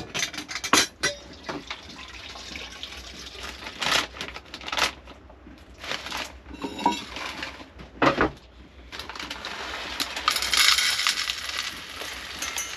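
Kitchen clatter: dishes, utensils and containers knocked, clinked and set down on a counter, in a string of sharp knocks. Near the end comes a longer rustling hiss lasting about two seconds.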